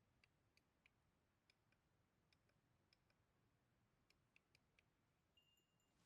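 Near silence with faint, irregular little clicks, about two or three a second.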